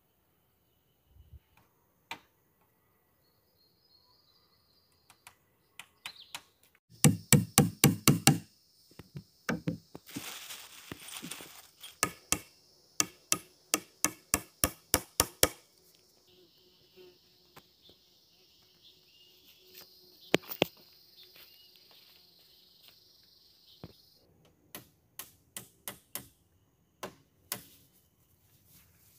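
Repeated chopping blows from a hand tool: a fast, loud flurry of strikes, then after a pause a steady run of about three strikes a second, and a few scattered single knocks near the end.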